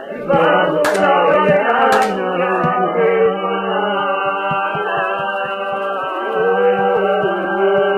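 Recorded music with singing over a steady beat.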